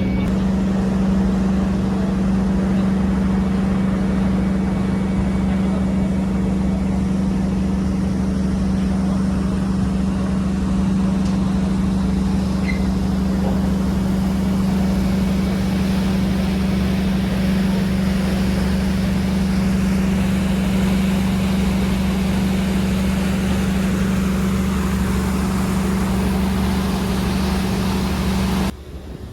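A river ferry's engine running steadily: a loud, constant droning hum. It cuts off suddenly near the end.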